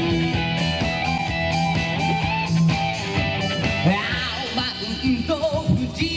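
Instrumental intro of a pop-rock song, with strummed electric guitar over a steady backing.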